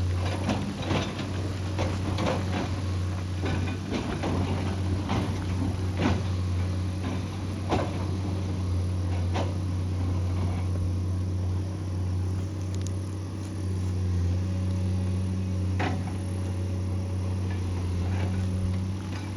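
Excavator's diesel engine running steadily under work, with frequent sharp clanks and knocks through the first half that thin out to a few later on.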